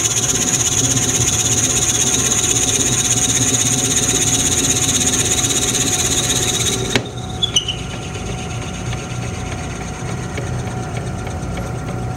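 Lathe running at about 500 RPM with a 5/8-inch brad point bit in the headstock drill chuck boring into a wood blank, a steady high whine over a hum. About seven seconds in, the cutting whine stops abruptly with a click as the tailstock quill runs out of travel, and the lathe runs on more quietly with faint ticks.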